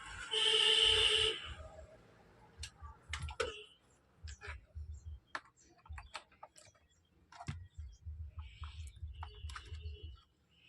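A short, steady, pitched tone lasting about a second near the start, then scattered sharp clicks and taps from handling the amplifier board and its wires, with a faint low hum.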